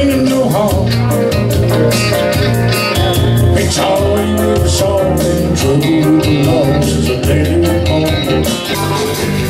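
Live band music: electric bass, acoustic guitars and keyboard playing a country-rock song with a steady beat.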